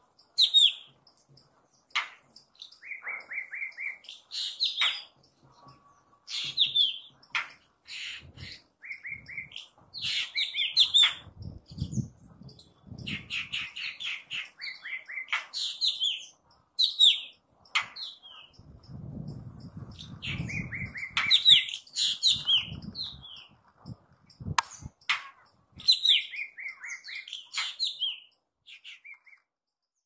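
Small birds chirping and calling in repeated phrases: quick chirps sliding down in pitch and short buzzy trills, with brief pauses between bursts.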